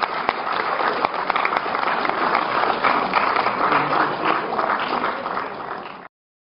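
Audience applauding, a dense patter of many hands clapping that dies down slightly and then cuts off abruptly about six seconds in.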